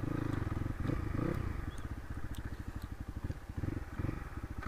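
Crossfire RM250 dirt bike's single-cylinder engine chugging at low revs while riding slowly on a dirt track, with a brief rise in revs about a second in.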